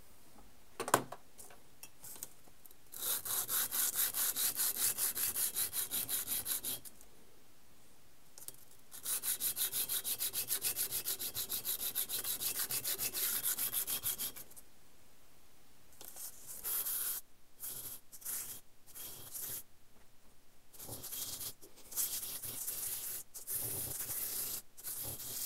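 Small 4140 steel parts rubbed back and forth by hand on sandpaper laid flat on a granite surface block, taking off the milling tool marks. There are two long runs of quick, even strokes, then shorter, uneven bursts of strokes. One sharp tap about a second in is the loudest sound.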